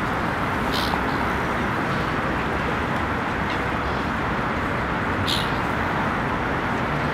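Steady outdoor background noise with no distinct source, with a few brief high chirps: one about a second in, one in the middle and one about five seconds in.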